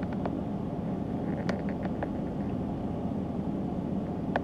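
Steady road and engine noise heard inside a moving taxi's cabin, with a few faint clicks.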